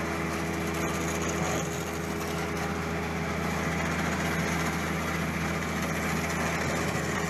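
Engine of heavy construction machinery running steadily, a constant drone with an unchanging hum.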